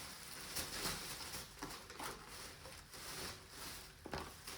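Rustling with a few light knocks and clicks of small household items and packaging being handled and moved about.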